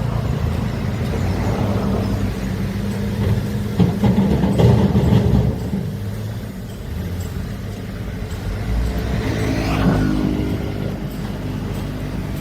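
Heavy diesel engine of a large excavator running under load, louder about four seconds in and revving up with a rising pitch near the end.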